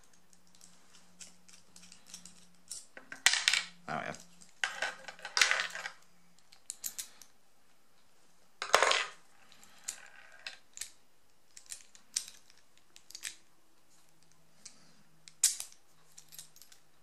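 Small metal parts and tools clinking, clicking and clattering as a padlock is handled and dismantled, with louder clattering a few seconds in and again about nine seconds in.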